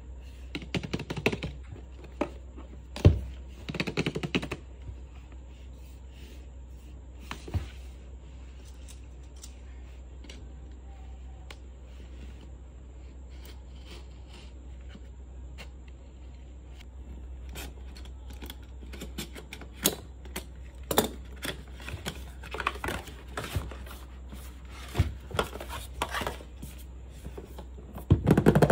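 Hands unboxing a plastic-wrapped toy kitchen set: crinkling shrink wrap, a box cutter scraping through the wrap and cardboard, and taps and knocks of the hard plastic case, with one sharp knock about three seconds in. The handling grows busier with many clicks and rustles in the second half.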